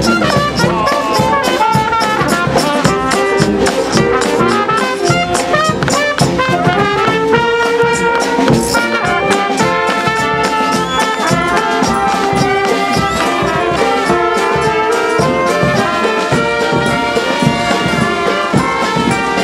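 Marching brass band playing live: trumpets, saxophones, trombone and sousaphone over a steady bass-drum beat.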